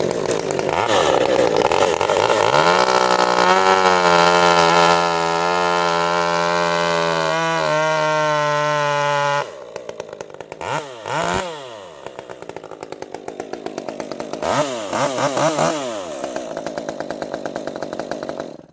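Chainsaw engine running hard at high revs for several seconds. It drops to idle about halfway, is blipped twice, then cuts off at the end.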